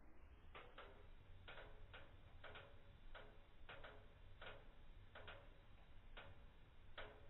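Faint crackling of a wood fire: sharp, separate ticks at an uneven pace of roughly two a second over near silence.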